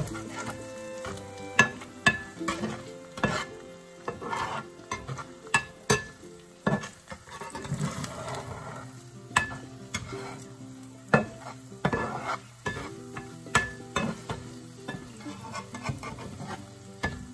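Scrambled eggs sizzling in a nonstick frying pan while a metal spatula scrapes and taps against the pan, giving sharp clicks every second or so.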